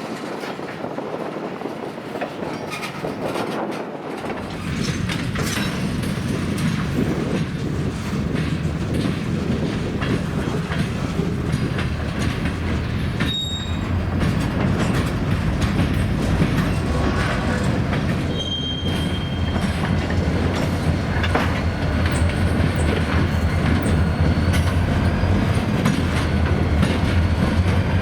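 Freight train rolling across the railroad diamonds: wheels clattering over the rail joints, with a few short high wheel squeals. A low rumble comes in about four seconds in and grows louder.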